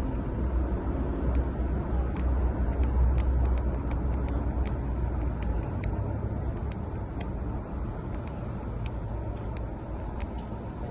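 Road traffic noise: a low vehicle rumble that fades about six seconds in, over a steady wash of noise, with many faint sharp clicks scattered through it.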